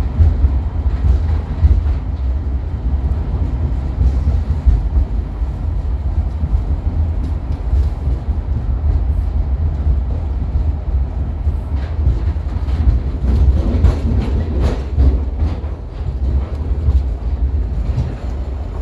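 Cable-pulled airport people-mover tram running on steel rails, heard from inside the car: a steady low rumble, with a run of clicks and knocks over the last several seconds as it rolls through the passing-siding switches.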